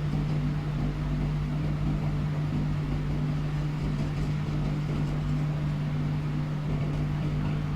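A steady low electrical or mechanical hum with one strong low tone, unchanging throughout.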